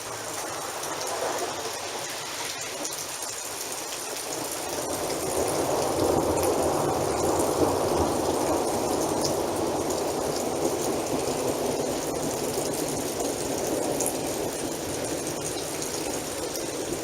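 Steady rain from a thunderstorm, with a long rolling rumble of thunder that builds about five seconds in and slowly dies away.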